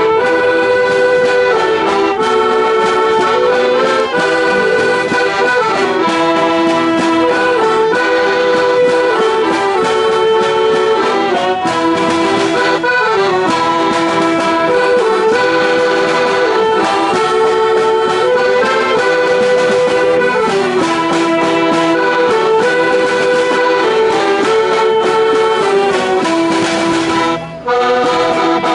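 A small folk band playing a lively tune: a melody in held, stepping notes over guitars and a bass drum beat, with a short break near the end.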